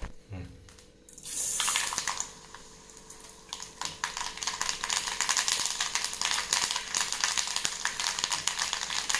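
Hot coconut oil sizzling in an aluminium kadai over a gas burner. A hiss starts about a second in, and from about three and a half seconds it turns into a dense, steady crackle and spatter as the tempering fries.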